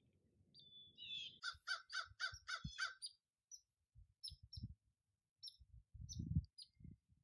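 A crow cawing in a quick series of about seven calls, followed by scattered short, high chirps and several low thumps, the loudest near the end.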